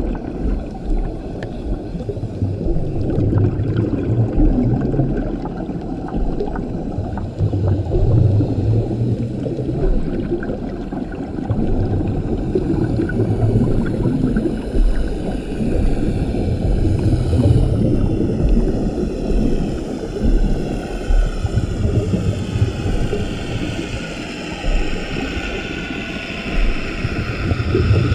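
Scuba regulator underwater: a diver breathing through it, with rumbling swells of exhaled bubbles every few seconds. In the second half, a faint whine slowly falls in pitch.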